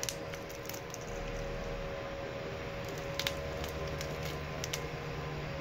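Crisp fried chicken skin crackling in a few sharp snaps as the piece is torn apart by hand, over a steady background hum.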